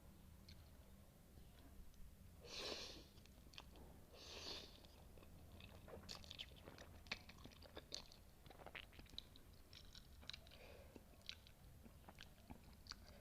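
Close-miked chewing of spicy instant noodles and kimchi. Two short, noisy mouth sounds come a few seconds in, followed by a run of crisp crunching clicks through the second half.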